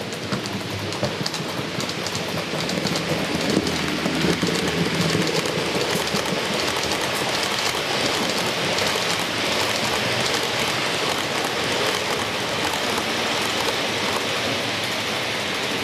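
HO scale model freight train of hopper wagons rolling past: a dense, steady rattle of small metal wheels on the track with fast clicking over the rail joints, fuller and with a low rumble from about three seconds in.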